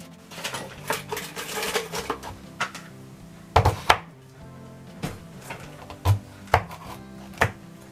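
Kitchen knife cutting peeled sweet potato on a cutting board: a scraping rustle in the first couple of seconds, then several sharp, irregularly spaced chops.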